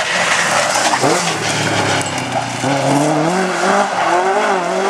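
Ford Escort rally car engine at full throttle close by. About a second in the pitch drops sharply as the driver lifts or changes gear, then the engine climbs and wavers in pitch as it accelerates hard through the bend.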